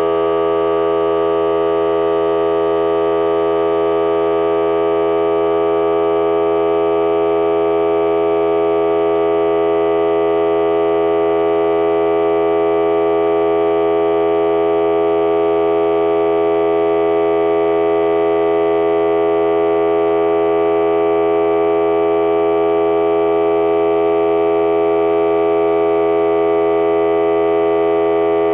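Ryobi 18V cordless 1-gallon air compressor running continuously at a steady pitch, pumping air through the hose to inflate a car tire.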